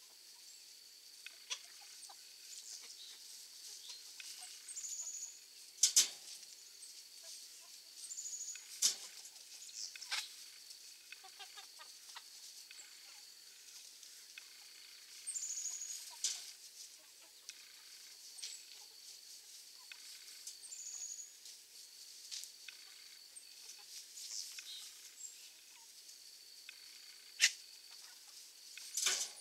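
A flock of chickens foraging in grass, clucking softly now and then, with a few sharp clicks standing out above them. A steady high-pitched tone runs underneath.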